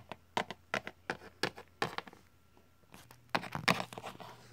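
Irregular light taps and clicks from plastic Littlest Pet Shop figures being handled and moved about on toy furniture, with a denser, louder cluster of clicks about three seconds in.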